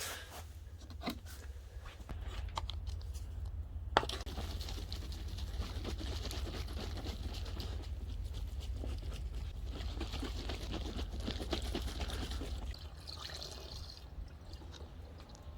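Water trickling and splashing, with a few sharp clicks and knocks, the sharpest about four seconds in.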